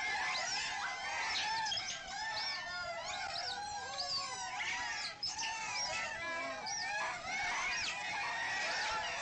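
Many small birds chirping at once: a dense, overlapping chorus of short rising-and-falling chirps, with no let-up.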